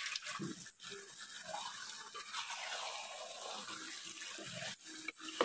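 A spoon stirring and scraping chicken pieces through masala in a cooking pot, with a faint sizzle and a few sharp knocks of the spoon against the pot, about a second in and twice near the end.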